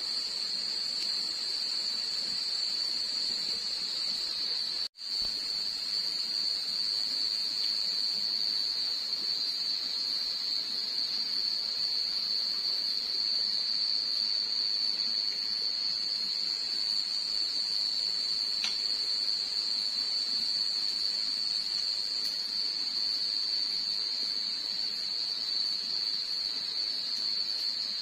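Night insects, crickets among them, keeping up a continuous high-pitched trill, which drops out for a moment about five seconds in.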